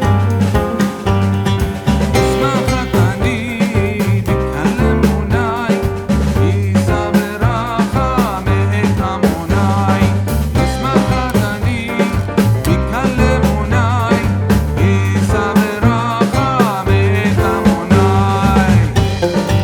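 Upbeat background music with a steady bass line, plucked strings and a wavering lead melody.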